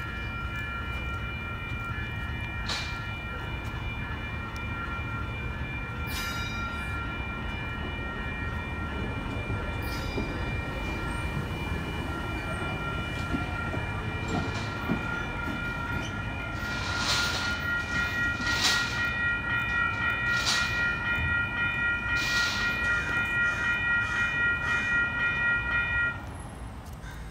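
Coaster bi-level commuter train rolling out of the station with a low rumble of the cars on the rails. A level-crossing warning bell rings steadily over it, pulsing about twice a second and getting louder partway through, then stops suddenly about a second before the end as the crossing clears.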